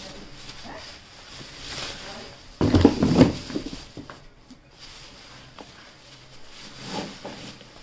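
Thin black plastic bags rustling as hands shift and lift them inside a cardboard box, with a louder bump of bags against the box a little under three seconds in.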